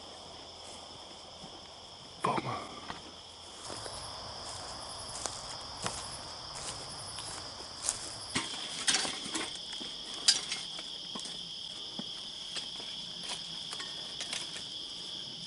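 Steady chorus of night insects, heard as two constant high-pitched trills. Scattered clicks and knocks run through it, with a brief, louder falling sound about two seconds in.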